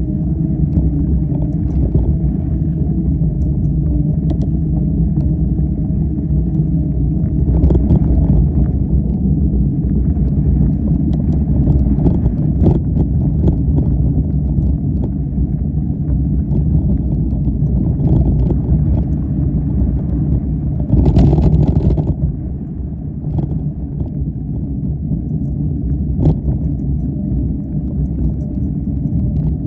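Off-road vehicle's engine running steadily under load through deep trail sand. A short louder rush of noise comes about 21 seconds in, after which it runs slightly quieter.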